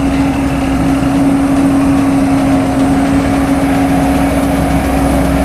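Sakai SV515D single-drum road roller's diesel engine running steadily, with a constant droning tone over a low rumble.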